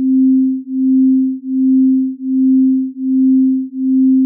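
Two slightly detuned sine waves sounding together as one steady pure tone that pulses in loudness about once every three-quarters of a second. The pulsing is beating: as the waves drift in and out of phase, their positive and negative values partly cancel and then add again.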